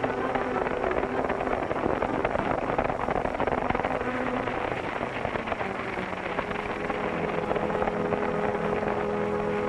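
Horses galloping in a group, a dense rapid clatter of hoofbeats, with held notes of background music underneath.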